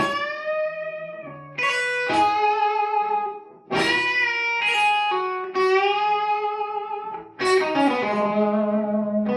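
Electric guitar playing a lead phrase of ringing notes, with a new attack every one to two seconds and some notes bent slightly upward: hammer-on phrasing meant to imitate a bagpipe.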